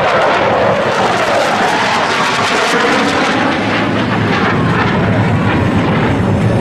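Blue Angels F/A-18 Hornet jets flying past low and loud, a continuous jet engine roar whose pitch drops in the first second or so as an aircraft passes.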